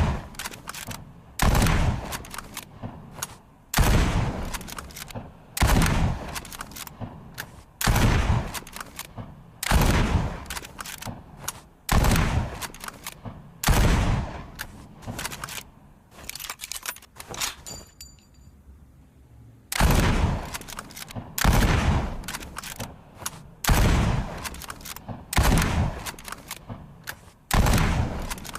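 Mosin-Nagant bolt-action rifle fired repeatedly: about a dozen sharp shots roughly two seconds apart, each trailing off, with smaller clicks and rattles between shots. There is a longer pause of about four seconds about two-thirds of the way through.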